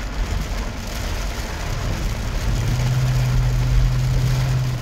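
Inside a moving vehicle in heavy rain: steady road and engine rumble with rain hitting the windshield, and a steady low hum joining about halfway through.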